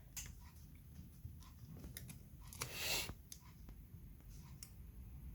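Faint, scattered light taps of a fingertip on the cracked glass of an iPhone 7 screen while its touch is being tested, with a brief rustle about three seconds in.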